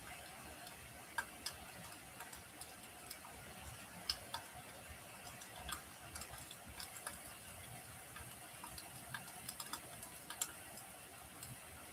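Wood fire in a fireplace crackling: a quiet steady hiss broken by irregular sharp pops and snaps, the loudest about a second in and again about four seconds in.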